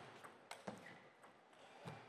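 Table tennis rally: a celluloid-type plastic ball being struck by rubber-faced bats and bouncing on the table, with two sharp clicks about half a second in and a duller knock near the end.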